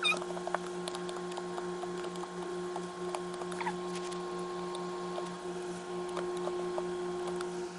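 Slime being played with by hand: small scattered sticky clicks and pops over a steady low hum.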